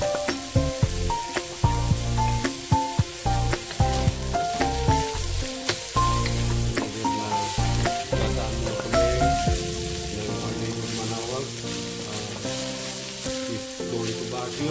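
Chopped milkfish, onion and red pepper sizzling in a steel wok as a wooden spatula stirs and scrapes against the metal, with background music carrying a melody and bass line. Sharp knocks stand out in the first half.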